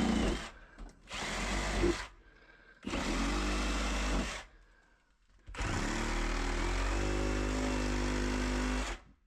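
Power saw cutting into drywall, run in four bursts of a second to three seconds with short pauses between. Only the tip of the blade goes into the wall, to keep clear of pipes behind it.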